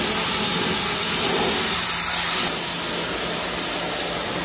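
Kärcher electric pressure washer blasting a jet of water onto a concrete path: a steady spray hiss over the low hum of the pump motor, the hiss easing slightly about halfway through.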